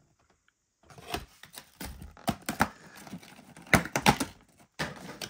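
Cardboard and plastic packaging being handled as promo cards are taken out of a Pokémon card premium collection box: a run of irregular clicks, taps and crinkles starting about a second in, the sharpest just before four seconds in.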